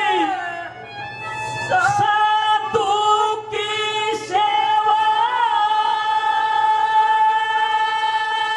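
A male ragni singer's high voice holding long, sustained notes into a microphone. The voice breaks off briefly about a second in and again around four seconds in, sliding up into the next held note each time, with a little waver in the pitch midway.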